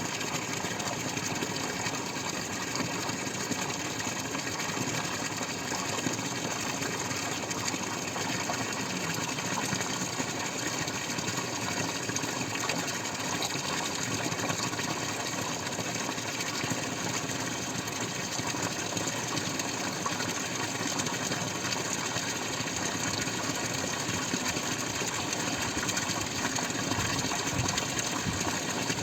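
Water dripping and splashing steadily, with no pauses.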